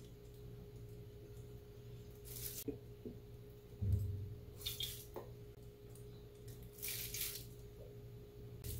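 Liquid seasonings poured from bottles onto a metal spoon and tipped into a pot: a few brief trickles and light spoon clinks, with a soft thump about four seconds in, over a faint steady hum.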